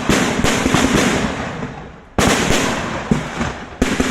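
Gunfire and blasts in a military combat drill. There is a sharp bang at the start, another about two seconds in and a third near the end, each followed by a dense crackle of shots that echoes away.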